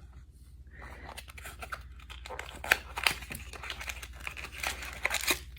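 Packaging being torn open and crinkled by hand to unwrap a small squishy toy: a dense run of crackles and rustling that starts about a second in and stops just before the end.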